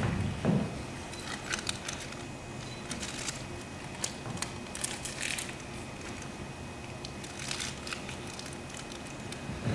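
A hushed room with scattered faint clicks and rustles over a low steady hum.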